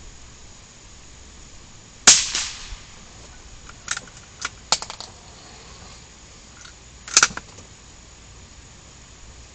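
Two gunshots about five seconds apart, with a few lighter sharp clicks between them.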